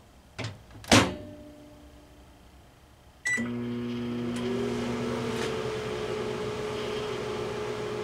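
GE countertop microwave oven: the door is shut with two knocks about a second in, the keypad gives a single beep about three seconds in, and the oven starts cooking with a steady hum.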